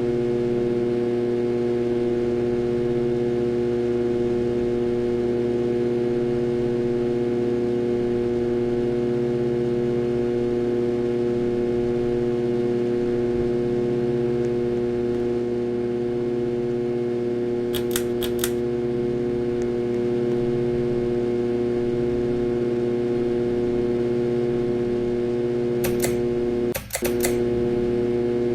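Harbor Breeze Ocracoke ceiling fan motor running with a loud, steady electrical hum, which the owner puts down to a bad motor. A few short clicks come about two-thirds of the way through and again near the end.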